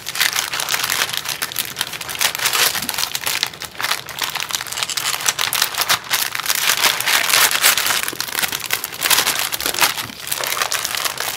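Clear plastic cellophane bag crinkling and crackling as hands handle it and slide stenciled paper sheets in and out.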